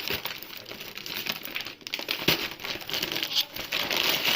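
Plastic instant-noodle packet being handled and crinkled, a continuous run of small crackles.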